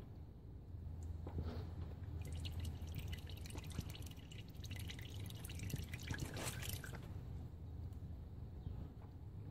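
Engine oil pouring in a stream from a 2011 Honda Accord's oil-pan drain hole into a catch pan just after the drain plug comes out, heard as a faint splashing trickle. It is loudest from about two to seven seconds in.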